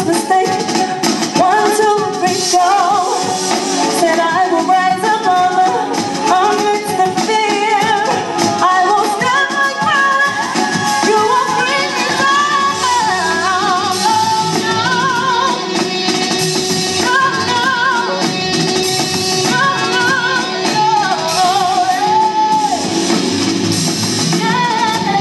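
A woman singing live into a microphone, holding long notes with a wavering vibrato.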